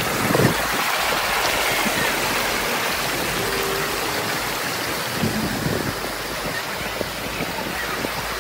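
River water rushing and splashing over rocks in shallow rapids: a steady, unbroken rush.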